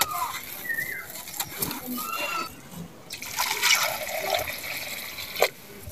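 Dry sand-cement crumbled by hand, trickling down onto the heap. About halfway in, water pours from a plastic bucket into a hollow in the dry powder for about two seconds, then stops.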